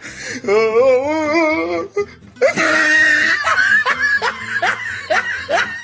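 A person laughing hard: a wavering, drawn-out laugh, then a shrieking burst and a run of short "ha" pulses about three a second, over background music.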